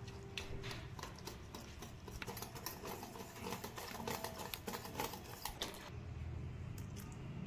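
A metal spoon clicking and scraping against a stainless steel bowl while stirring thin, wet dosa batter, in quick irregular taps that stop about six seconds in. A low steady hum runs underneath.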